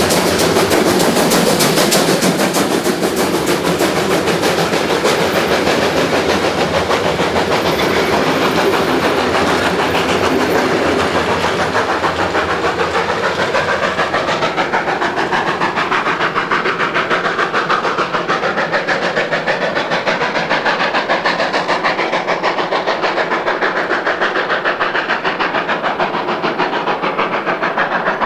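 Steam locomotive working hard up a gradient with a train of coaches, giving fast, sharp exhaust beats as it passes. Its brightest part fades from about halfway, leaving the rumble and clatter of the coaches rolling by.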